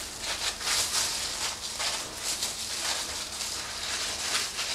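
Soft, irregular rustling and scraping as a knife trims pork shank meat on a stainless steel table, with the butcher's plastic gloves crinkling.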